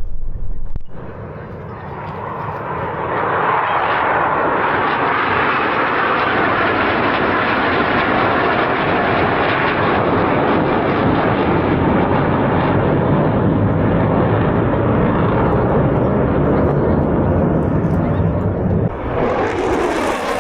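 Military jet aircraft engine noise at an airshow, building about two seconds in to a loud, steady, rushing sound. The sound shifts and turns brighter near the end.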